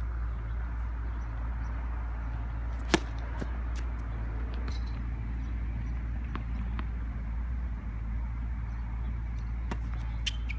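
Tennis balls being hit and bouncing on a hard court: scattered sharp knocks, one much louder than the rest about three seconds in, over a steady low rumble.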